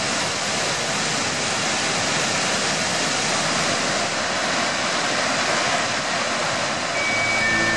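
Water pouring through open dam spillway gates and down a concrete spillway chute: a steady, rushing noise. Near the end, music with mallet-percussion notes comes in over it.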